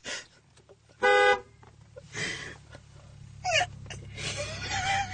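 A single short car-horn honk about a second in, followed by a low steady hum.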